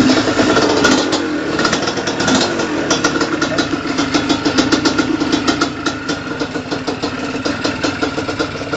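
Suzuki TSR125's two-stroke single-cylinder engine running steadily at idle with a rapid, even exhaust beat. It stops near the end.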